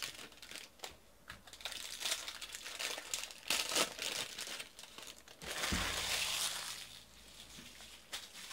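Foil wrapper of a Bowman baseball card pack crinkling and tearing as it is opened and crumpled by hand, in a string of short crackles. A louder stretch of crinkling comes about six seconds in, then it fades.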